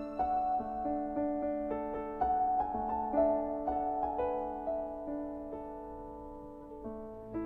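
Soft background music: piano notes played slowly and held, a new note every half second or so.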